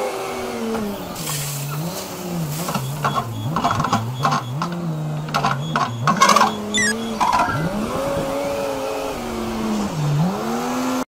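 Komatsu wheel loader's diesel engine revving up and down as it raises and tips its bucket, and gravel clattering and rattling into a dump truck's steel tray through the middle; the loudest clatter comes about six seconds in, as the load drops.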